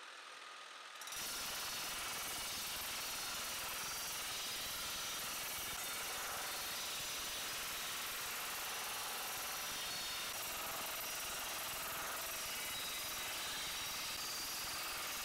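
Mechanical power hammer with a rounded die rapidly hammering a steel helmet plate over a stake. It starts suddenly about a second in, after a quieter motor hum, and runs at a steady rate, the blows too fast to tell apart.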